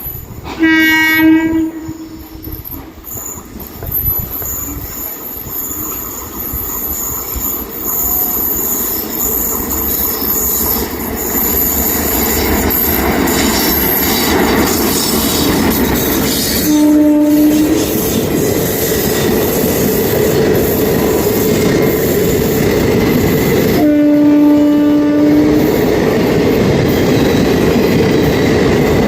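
An Indian Railways electric locomotive sounds its horn three times, each a single steady note: a short blast at the start, another about two-thirds of the way in, and a longer one of about a second and a half near the end. Meanwhile the rumble of the express train and the clatter of its wheels on the rails swell up and then stay loud as it runs past.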